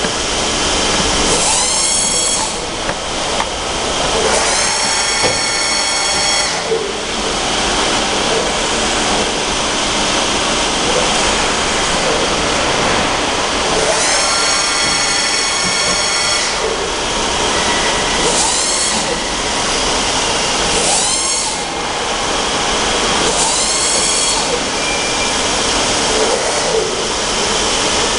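Axis drives of a METBA three-axis CNC bed milling machine whining in about six separate sweeps that rise and fall in pitch as the axes traverse, over a steady loud hiss.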